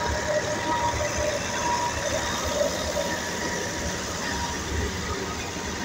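Fiat 480 tractor's three-cylinder diesel engine running steadily under load, belt-driving a thresher that is being fed dried crop.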